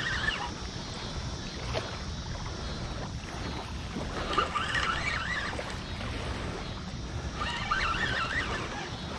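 Wind rumbling steadily on the microphone, with three short bursts of high, wavering chirps, each about a second long, spaced a few seconds apart.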